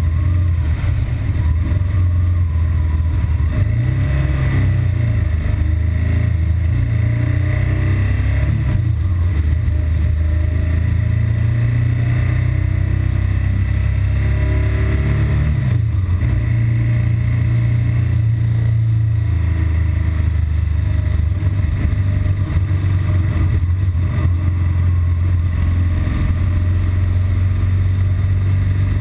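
BMW R1200GS Adventure's boxer-twin engine running roughly in traffic under a heavy low rumble, its revs rising and falling a few times. This is the intermittent fault that makes it idle roughly and stall after a long fast run.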